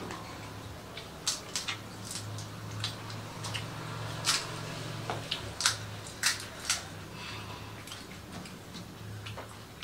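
Irregular short crisp crunches and clicks, typical of hollow pani puri shells cracking as they are bitten and chewed, over a steady low hum.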